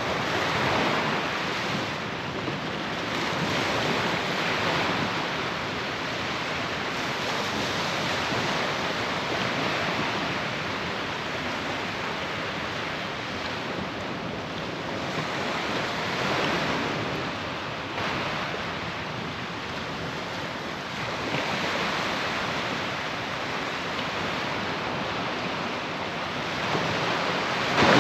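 Surf breaking and washing up the beach, a steady rushing hiss that swells and eases every several seconds as the waves come in.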